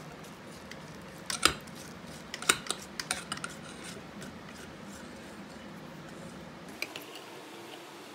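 A spatula scraping and knocking against the sides of a stainless steel mixing bowl of cornbread batter, with the mixer beaters clinking against the rim: a cluster of sharp clicks and knocks from about one to three and a half seconds in, and one more near the end.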